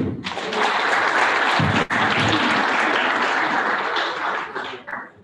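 Audience applauding: a steady round of clapping that starts at once, tapers off in the last second and stops.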